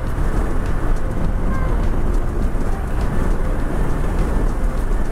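Wind rushing over the rider's camera microphone together with motorcycle engine and road noise while cruising on a highway: a steady, even rush with no gear changes or revving.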